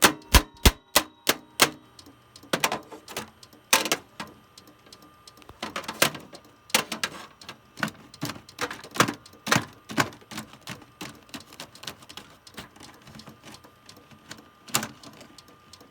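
Small metal hammer striking the inside of an open desktop computer: a quick run of sharp blows in the first two seconds, then irregular knocks every second or so, thinning out toward the end.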